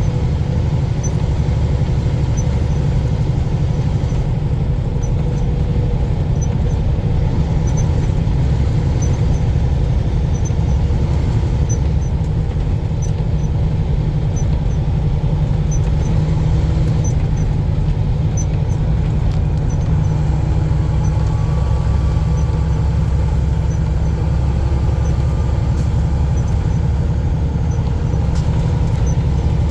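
Steady low rumble of a truck's engine and road noise, heard from inside the cab while driving at a constant speed.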